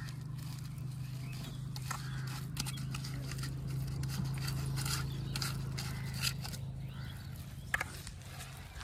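Hands kneading fishing bait in a steel bowl, with scattered scrapes and clicks, over a steady low hum that stops just before the end.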